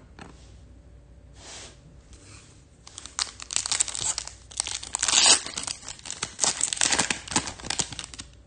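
Foil wrapper of a Topps Chrome Formula 1 trading card pack being torn open and crinkled by hand. A rapid crackling starts about three seconds in, peaks midway and stops just before the end.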